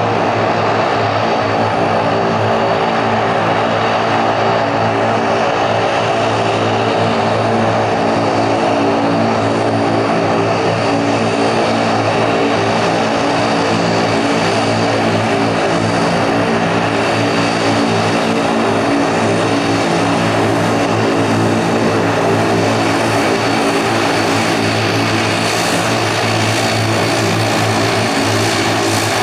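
Twin turboprop engines of an ATR 42-500 running at low taxi power, their six-bladed propellers giving a steady drone of several held hum tones over a rushing noise.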